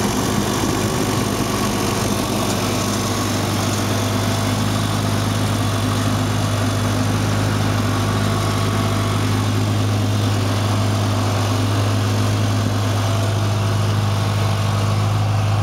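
1972 Farmall Cub tractor's four-cylinder gasoline engine running steadily at an even pitch, warmed up after a cold start.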